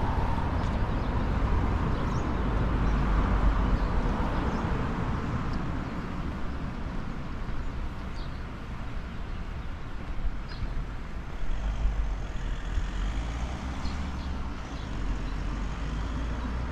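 Outdoor ambience dominated by a low rumble of road traffic that swells over the first few seconds and then settles, with a few faint, short, high bird chirps.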